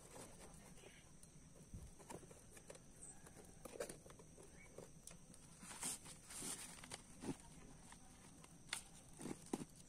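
Soft, intermittent rustling and light taps of a nylon drawstring bag being handled as its cord is pulled loose.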